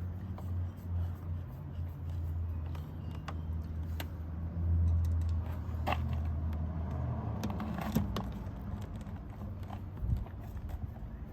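Scattered clicks and light rattles of door parts and fasteners being handled during reassembly, four sharper clicks among them. Under them is a steady low hum that fades out about three-quarters of the way through.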